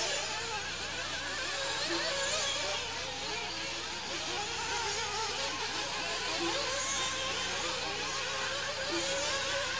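Several nitro RC buggy two-stroke engines whining at high revs, their pitches rising and falling as the cars accelerate and back off around the track.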